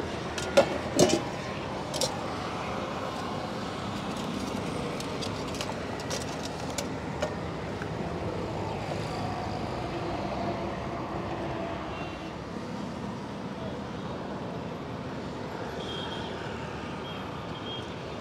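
Steady hum of road traffic, with a few sharp metal clinks about a second in as a steel plate lid is lifted off a pan and set down. Fainter clinks of a steel spoon in the pan follow.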